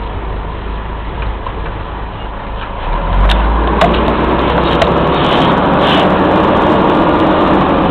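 Old Mack CF fire engine running, heard from inside its cab through an open window. It grows louder about three seconds in, with a few sharp clicks after that.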